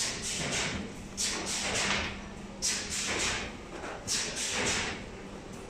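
Steady low hum from a running plastic injection moulding machine, with four short hissing rushes about every second and a half.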